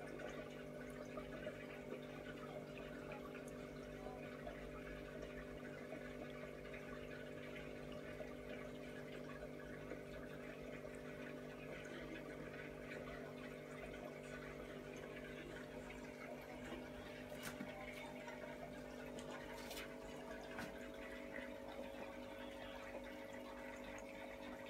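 Aquarium filter pump running: a steady motor hum with water trickling and splashing in the tank, and a few faint clicks in the second half.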